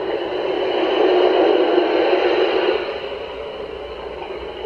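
Steady rushing hiss with no tone in it, swelling over the first couple of seconds and then easing off.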